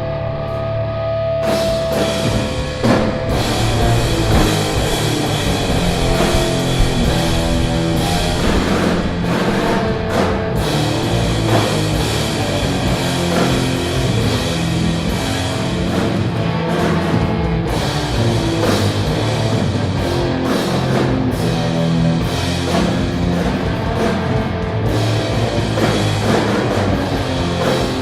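Stoner metal band playing: distorted electric guitars, bass and drum kit. A single held note gives way to the full band about a second and a half in, and the band plays on steadily.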